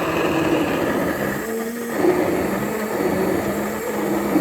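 Handheld stick blender motor running steadily as it purées boiled cherry tomatoes for a dip in a glass, its pitch shifting slightly as it works through the food.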